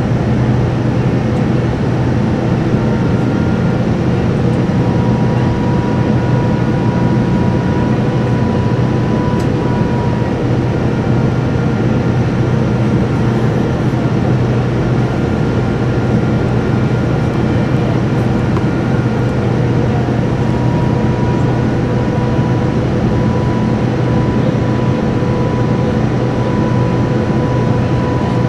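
Cabin noise of a Boeing 787-9 on approach, heard from a window seat beside the engine: a steady drone of engine and airflow with a low hum and faint, steady whining tones that come and go.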